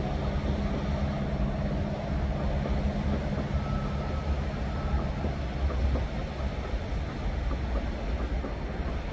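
Steady low rumble with a distant engine hum that fades out about halfway through.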